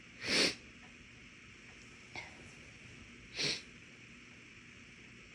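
A woman's breath through nose and mouth during a bout of induced sneezing: two short breathy bursts about three seconds apart, the first louder, with a faint tick between them.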